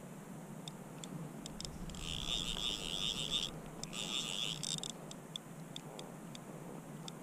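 Fly reel's click drag ratcheting while a hooked fish is played: two fast runs of clicks about two and four seconds in, with scattered single clicks before and after.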